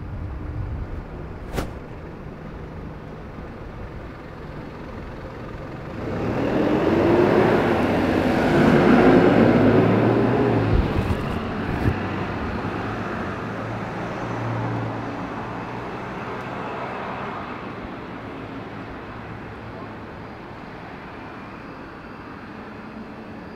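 Road vehicle passing by: its noise builds from about six seconds in, is loudest around nine seconds, then fades away over the next several seconds above steady street background noise.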